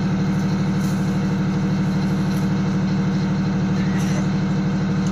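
Engine of an M113-type tracked armored mortar carrier idling steadily with an even, fast throb.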